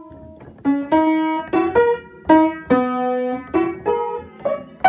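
Piano played in the middle register: a slow tune of single struck notes, some held and left to ring, with one sharper, louder note at the very end.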